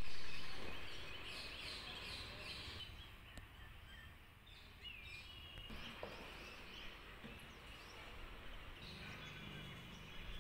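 Birds chirping in short repeated calls, thickest in the first few seconds and again near the end, over a steady low outdoor rumble.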